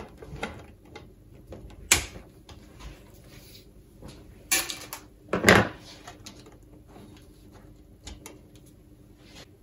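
Side cutters snipping through the thin PVC-insulated wires of a computer ATX power supply and knocking on a wooden worktop. It comes as a few sharp clicks and knocks, the loudest about five and a half seconds in, with light rustling of wire between.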